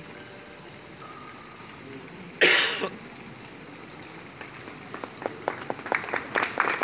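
A single short cough about two and a half seconds in, then scattered hand claps from about four and a half seconds in that build into audience applause welcoming a speaker.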